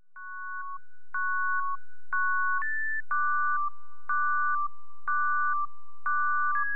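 Synthesizer music intro made of pure electronic beeps: two tones held together, a new pair about once a second, each starting with a click. It fades in over the first second.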